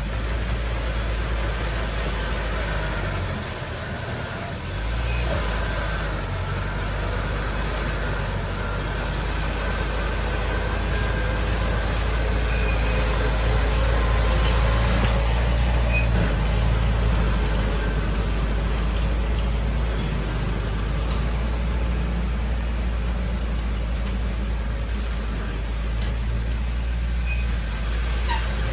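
Heavy diesel construction machinery running steadily with a deep engine drone; the low rumble dips briefly about four seconds in, then carries on.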